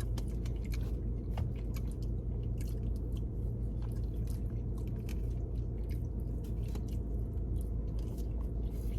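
A man chewing food close to the microphone: frequent small wet clicks and smacks of the mouth over a steady low hum.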